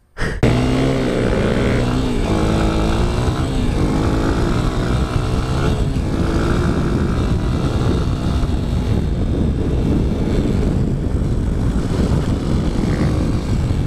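Honda CRF230F dirt bike's single-cylinder four-stroke engine under way, starting about half a second in. Its pitch rises and falls as it revs through the gears over the first few seconds, then it runs more steadily at speed.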